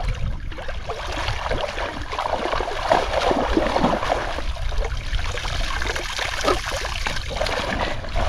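Water splashing and trickling in an irregular, fluttering way.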